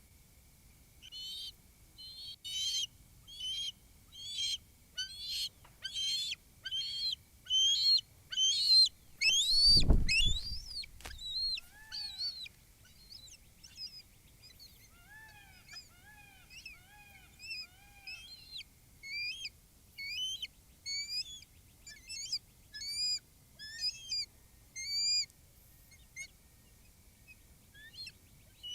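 Bald eagle calling: a fast series of high, piping chirps that grow louder, a heavy thump about ten seconds in, then softer, scattered chirps.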